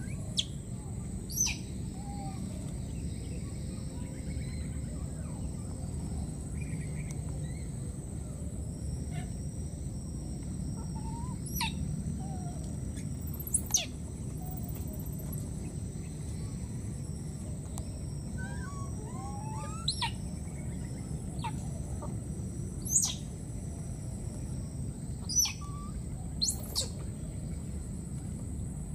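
Outdoor ambience: a steady low rumble and a constant thin high whine, broken every few seconds by short, sharp chirps. The two loudest chirps come late on.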